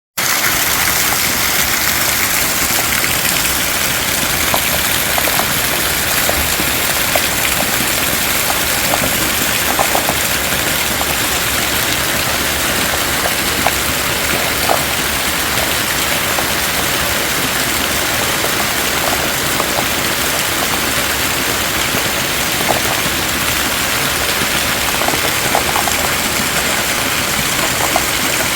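Heavy rain pouring steadily, a dense even hiss with scattered small drips and splashes.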